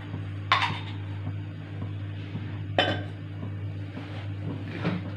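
Two sharp metallic clinks of kitchen utensils, about half a second in and near three seconds, with a softer one near the end, over a steady low hum.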